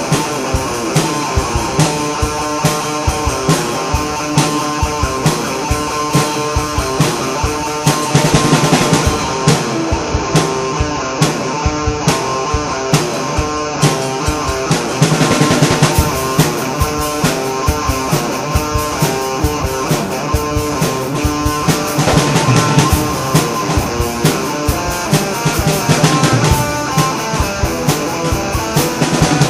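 Rock music: guitar playing over a drum kit keeping a steady beat.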